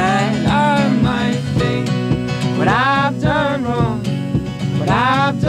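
Acoustic folk band playing live: acoustic guitars and a banjo strumming and picking a steady accompaniment, with a man singing three drawn-out phrases over it.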